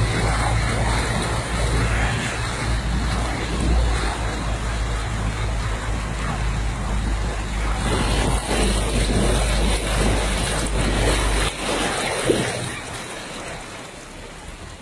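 Fast-flowing floodwater rushing over a road, heard from inside a car, with a steady low rumble from the car that drops away about three-quarters of the way through.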